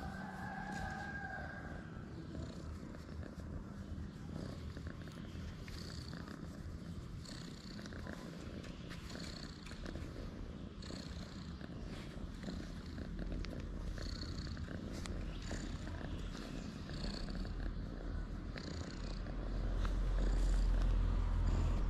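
Calico street cat purring steadily, close up. A low rumble swells near the end.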